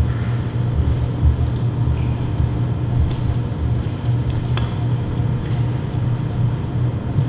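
Steady low mechanical hum filling the room, with a few faint light clicks about three and four and a half seconds in.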